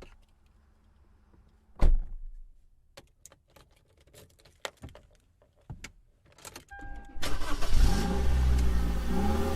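A car being started: a thump about two seconds in, then a run of small metallic clicks like keys, a short beep, and about seven seconds in the engine starts and runs with its pitch rising and falling.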